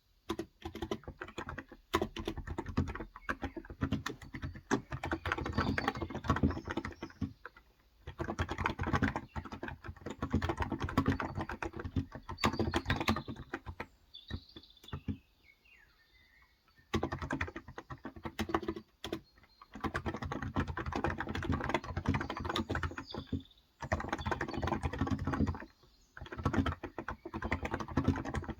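Steady, fast typing on a Cox Endeavor electro-capacitive (Topre-style) tenkeyless keyboard with 35 g switches, in runs of several seconds broken by short pauses. During a longer pause about halfway through, a few faint bird calls come in.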